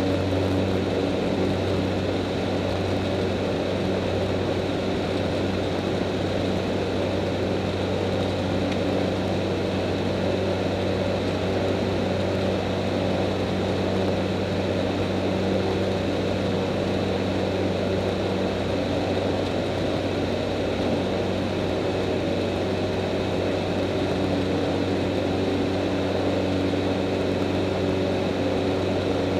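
X-Air Hanuman ultralight's engine and propeller running at a steady, unchanging pitch through the takeoff roll and climb-out, heard from inside the cockpit.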